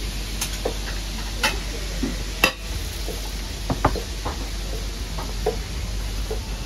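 Kitchen cooking sounds: a steady hiss of frying under scattered clinks and knocks of a metal frying pan and utensils, the sharpest about two and a half seconds in.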